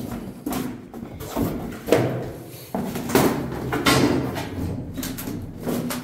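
Irregular scuffs, rustles and knocks of people moving through a narrow doorway on foot, with the camera brushing close against the door frame. The loudest knocks come about two, three and four seconds in.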